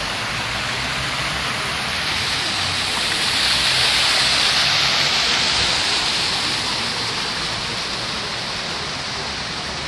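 Ornamental plaza fountain's water jets splashing steadily into the basin, growing louder in the middle as they are passed up close.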